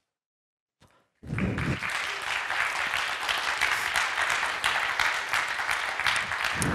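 Audience applauding, starting about a second in after a moment of dead silence and holding steady.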